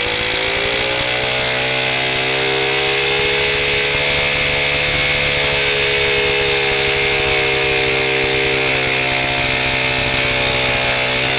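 1969 Honda Z50's 49 cc single-cylinder four-stroke engine revving and then held at high, steady revs while the rear tire spins on wet concrete in a burnout. A loud hissing scrub from the tire runs alongside it. The revs climb a little at first and then hold.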